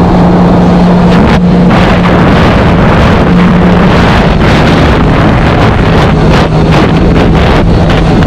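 Sea-Doo GTI SE jet ski running at speed across a lake: a steady engine drone whose pitch dips slightly partway through, with wind rushing over the microphone.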